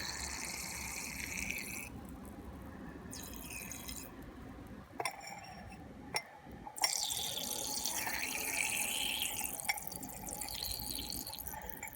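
Boric acid solution being poured into a cup, a steady hiss that stops about two seconds in and starts again later, with a few light clicks in the pause.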